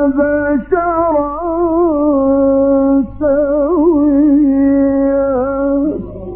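A man chanting a Quranic verse in the melodic mujawwad style: long held notes with wavering ornaments, broken twice by brief breaths, over a steady low hum. Near the end the chant stops and other voices come in.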